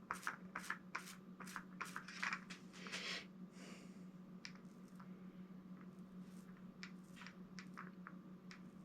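A 2-inch foam paint roller rolling over the raised lettering of a street sign, the tacky paint making quick soft clicks and crackles, dense for about the first three seconds and then sparser. A faint steady hum runs underneath.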